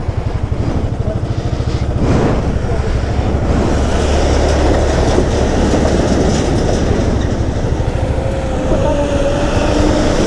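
Heavy truck's diesel engine running as it drives through a rocky stream crossing right alongside, a low pulsing rumble with the wheels churning and splashing through the water.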